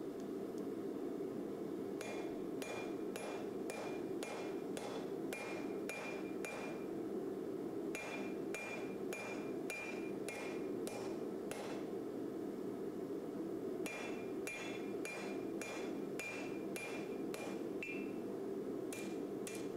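Hand hammer forging a red-hot steel knife blade on an anvil: about two blows a second, each with a short metallic ring. The hammering comes in runs, with a pause of about two seconds some twelve seconds in and another near the end, over a steady rushing noise.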